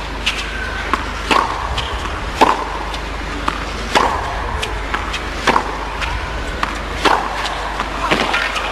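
Tennis ball hit back and forth with rackets in a baseline rally on a hard court: a sharp hit about every second to second and a half, over a steady low hum.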